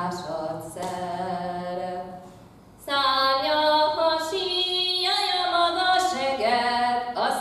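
A woman singing a Hungarian Matyó folk song solo and unaccompanied, in long held notes, with a short breath pause about two and a half seconds in.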